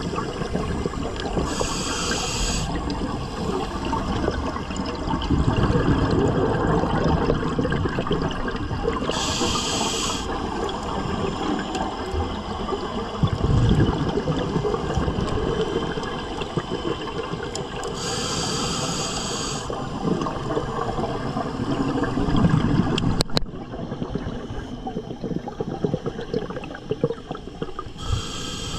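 Scuba diver breathing through a regulator underwater: a short hissing inhale roughly every eight or nine seconds, and between them the bubbling of exhaled air streaming out.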